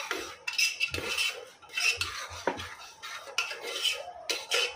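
Metal spoon stirring and scraping spice masala around the inside of a pressure cooker, a run of uneven metal-on-metal scrapes and knocks.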